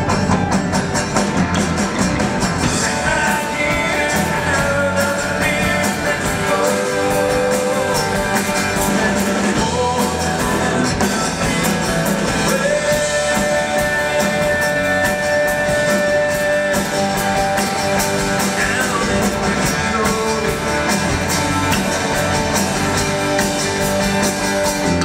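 Live band playing a rock song: a male singer over acoustic and electric guitars, bass guitar and drums, with some long held notes.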